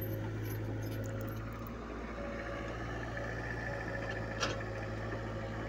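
Diesel engine of a tracked mini excavator running steadily while it digs, with one sharp knock about four and a half seconds in.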